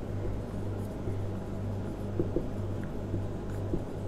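Marker pen writing on a whiteboard: a few faint scratches and taps, over a steady low electrical hum.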